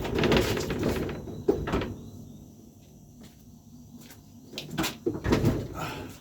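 A piano being pushed across the floor: rumbling for the first couple of seconds, then a few sharp wooden knocks and bumps, the loudest about five seconds in.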